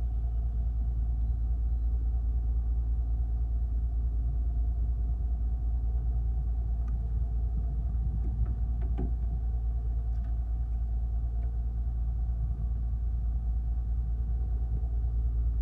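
Fishing boat's engine running steadily with a low rumble, a few faint clicks showing over it between about seven and eleven seconds in.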